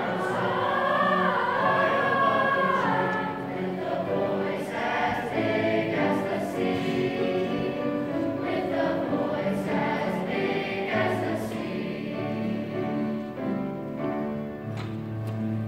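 Mixed choir of young voices singing in harmony, holding long chords that shift from note to note.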